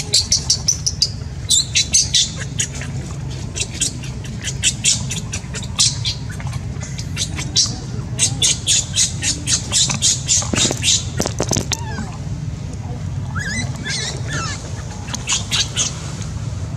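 Runs of rapid, high-pitched squeaky chirps from an animal, several a second, stopping and starting in groups, with a few short falling squeals in the second half. A steady low hum runs underneath.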